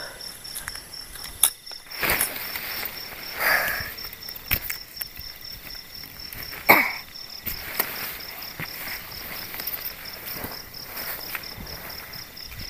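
Crickets chirping steadily at night, a regular pulse of about four chirps a second, over rustling and knocks of a nylon tent and its bag being handled as a dome tent is pitched; the loudest knock comes about seven seconds in.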